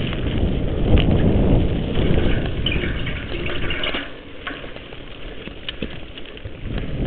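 Mountain bike riding along a dirt singletrack: a steady rumble of tyres on the trail and air on the microphone, with scattered clicks and rattles from the bike. It gets quieter about four seconds in.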